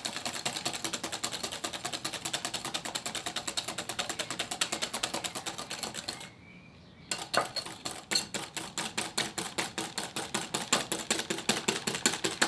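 Eggs and sugar being beaten by hand in a bowl, the utensil clicking rapidly and evenly against the bowl at about seven strokes a second. The beating stops briefly a little after six seconds in, then starts again.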